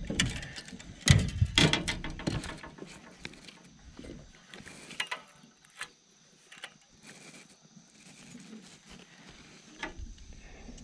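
Irregular clicks and knocks of fishing tackle being handled in an aluminium boat, heaviest about a second in, then lighter scattered clicks.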